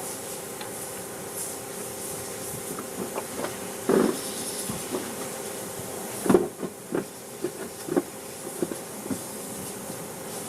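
A steady mechanical hum with a hiss, broken by irregular sharp knocks, loudest about four seconds in and again just after six seconds, with smaller ones following.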